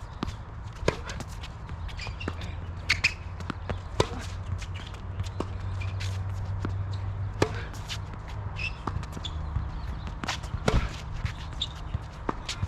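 Tennis ball play: sharp knocks of the ball being struck and bouncing, at irregular intervals of about a second or more, with footsteps on the court and a low steady hum underneath.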